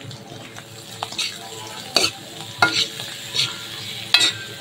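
Spatula scraping and knocking against an iron kadhai as spiced potatoes are stirred and mashed in hot oil, about five strokes, over a light sizzle.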